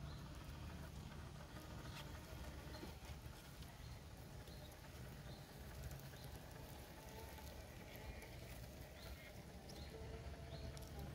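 Faint irregular ticking and crackling, like a radio-controlled Traxxas TRX-4 crawler's tyres creeping over leaves and twigs on the forest floor, over a low steady hum.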